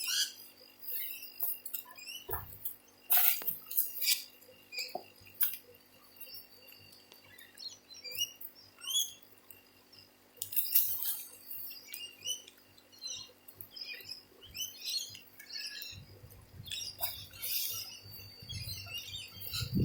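Hands digging through loose potting soil in a large container for potatoes: scattered rustles, scrapes and soft knocks. Small birds chirp in the background.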